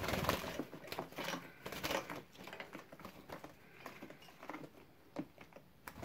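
Faint, irregular rustling, scrabbling and light knocks from small finches shifting about in a wooden cage as they are handled, busiest in the first two seconds and quieter after.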